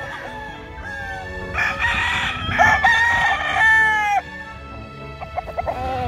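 A gamecock crowing once. The single crow starts about a second and a half in and lasts about two seconds.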